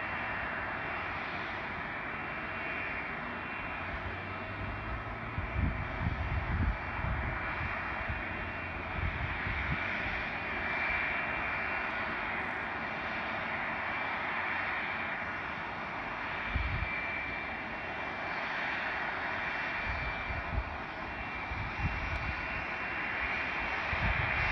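Jet engines of a Boeing 767-300ER (Rolls-Royce RB211s) running steadily on the ground, a continuous rushing hiss with a faint high whine. Irregular low rumbles come and go several times.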